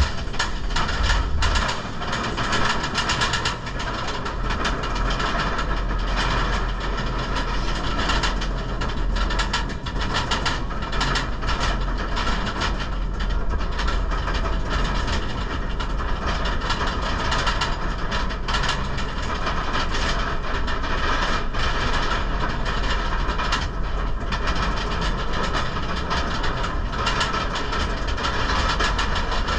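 A Bolliger & Mabillard dive coaster train being hauled up its chain lift hill. There is a steady low running hum from the lift chain and a fast, continuous clatter of clicks from the anti-rollback ratchet.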